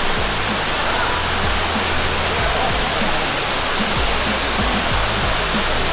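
Steady rushing roar of a waterfall, with a hip-hop backing track's bass line and beat playing under it.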